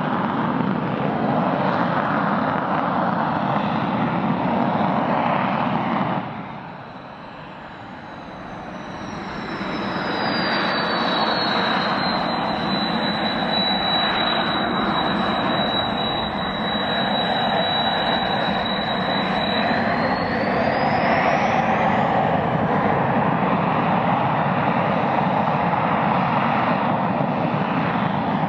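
Kawasaki T-4 jet trainer's twin turbofan engines running as it holds on the runway before takeoff: a steady jet roar with a high whine. The noise drops away suddenly about six seconds in and builds back, and the whine slides down in pitch, holds, then climbs again near the end as the engines spool up.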